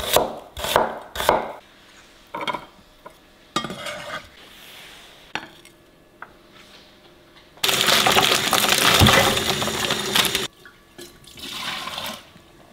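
A knife chopping onion on a wooden cutting board, about five quick strokes at the start, then a few light knocks and clinks as the pieces go into a bowl. In the second half a kitchen tap runs into the sink for about three seconds and then shuts off.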